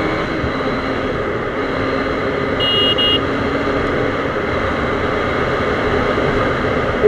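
KTM Duke 390's 373cc single-cylinder four-stroke engine pulling steadily in sixth gear as the bike accelerates from about 90 to 110 km/h, with heavy wind rush over the microphone. A short high beep sounds about three seconds in.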